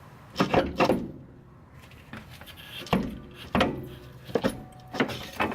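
A run of sharp clanks and knocks, three in quick succession near the start and then several more spaced out: metal suspension parts being knocked and wrestled while the rear shock assembly is worked out of the car.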